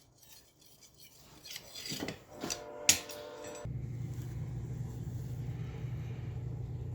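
Metal being handled: a few clinks and scraping rubs with one sharp click, then a steady low hum that starts suddenly about halfway through.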